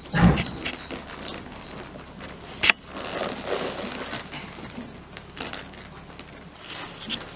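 Tennessee Walking Horse gelding walking on a dirt and straw floor: irregular crunching hoof steps with rustling and tack rattles, a heavy thud just after the start and a sharp knock about two and a half seconds in.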